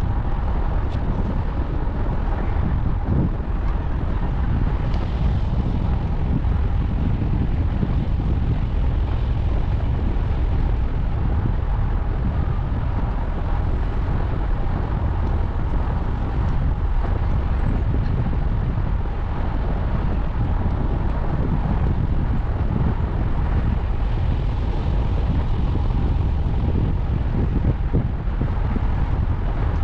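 Steady wind rumble on the microphone of a camera riding along on a moving bicycle, with a faint steady tone above it.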